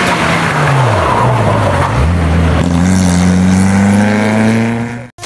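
Rally car engine dropping in revs about a second in, then pulling hard with a steadily rising note for about three seconds. It cuts off suddenly near the end.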